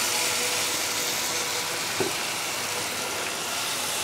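Egg curry gravy sizzling in a frying pan as a steady hiss, while a wooden spatula stirs it; a short knock about halfway through.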